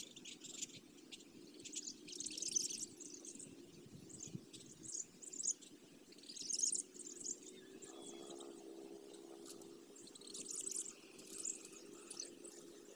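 Small birds chirping in short, high-pitched clusters every second or two, over a faint steady low hum.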